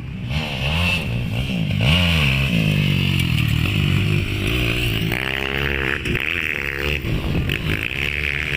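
Motocross bike engines revving up and down repeatedly, with several bikes running at once and their pitches rising and falling independently.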